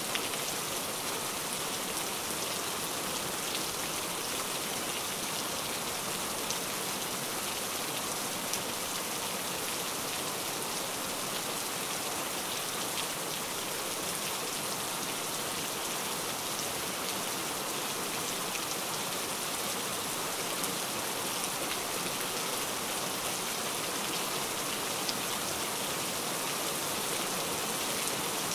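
Steady rain: an even hiss with scattered faint ticks of drops.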